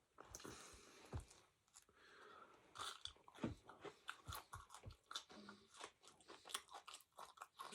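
A person chewing and crunching crispy fast food, many quiet irregular crunches.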